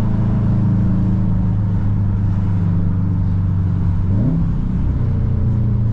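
Car engine running under steady load while driving. About four seconds in there is a quick rise in pitch, a brief rev, and then it settles into a steady drone at a slightly higher pitch.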